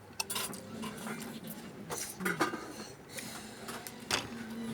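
Cutlery clinking against a plate or bowl during a meal: a handful of scattered, irregular clinks.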